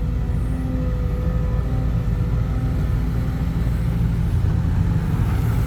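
Diesel dump truck engine running with a steady low drone.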